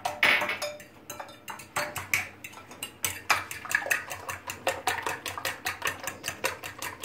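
Eggs being beaten by hand in a glass bowl, the utensil clinking against the glass in quick, regular strokes, several a second.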